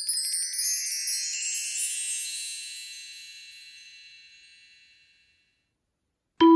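Chime sound effect: a quick shimmer of many high bell-like tones that rings and fades away over about five seconds. Just before the end, a glockenspiel-like background tune of struck notes begins.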